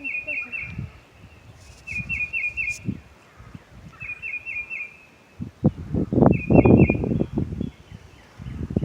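A songbird singing a short phrase of three or four quick high notes, repeated about every two seconds. Under it is an uneven low rumbling and bumping that swells a little past the middle.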